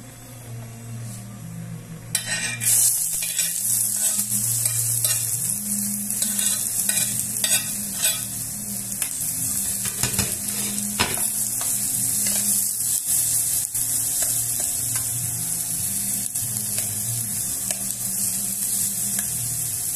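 Chopped onion and garlic dropped into hot oil in an aluminium pot about two seconds in, then sizzling steadily as they sauté. A metal spoon clinks and scrapes against the pot as it stirs them, over a low hum.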